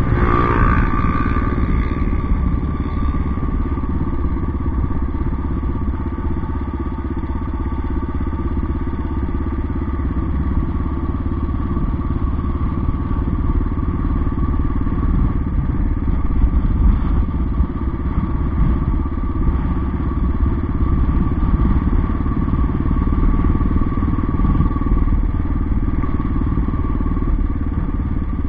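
Motorcycle engine running steadily while riding along a dirt track, with continuous rumble and wind noise on the microphone.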